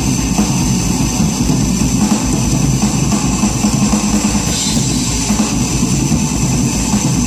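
Stoner rock played live and loud on electric guitar and drum kit, a dense, continuous wall of sound.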